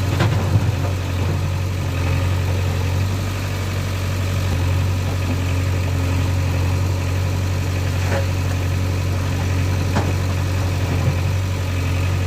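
Diesel engine idling with a steady low hum, with a few faint clicks over it.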